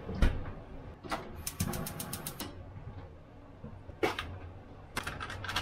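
Kitchen handling sounds during breakfast preparation: a knock, then a quick even run of about nine sharp clicks a second, and a few more clicks and a knock near the end, over a steady low hum.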